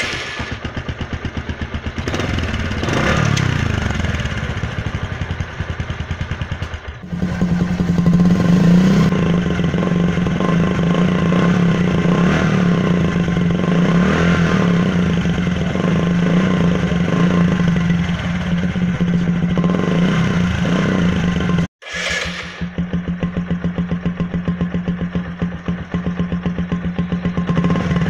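Single-cylinder motorcycle engine (Bajaj Discover) running with a plastic bottle fixed over its silencer tip, a homemade trick to make the exhaust sound like a KTM Duke; the exhaust pulses rattle and buzz through the bottle as the engine is revved up and down a few times. The sound cuts off abruptly twice, near a third of the way in and about three quarters of the way through, then resumes.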